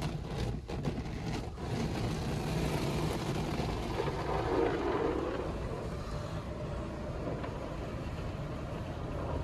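WashTec SoftCare Prevo rollover car wash spraying water and foam over the car, heard from inside the cabin as a steady rushing hiss, with a few sharp knocks in the first second or so.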